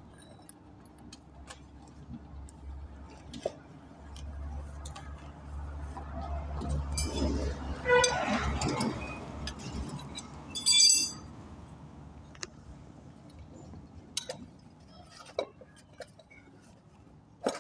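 Metal hand tools clinking and tapping as a wheel is unbolted from an electric wheelchair, with scattered light clicks, a louder stretch about eight seconds in and a short harsh burst about eleven seconds in. A low rumble builds in the background through the middle.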